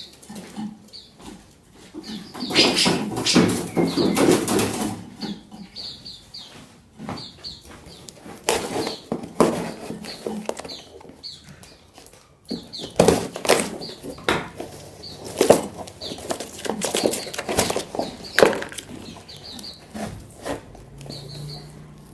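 Small songbirds flapping and scrabbling in a cardboard shipping box as they are handled, in irregular flurries with short high chirps between them.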